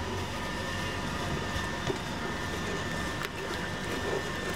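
Steady machine hum with a thin constant high whine, over which a wooden spoon stirs a thick sauce in a large stainless steel pot, giving a few light knocks against the pot.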